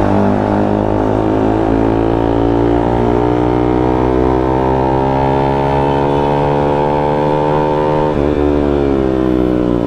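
Single-cylinder engine of a KTM Duke 200 motorcycle accelerating, its pitch climbing slowly and steadily; about eight seconds in, a gear change drops the pitch, and it then climbs again.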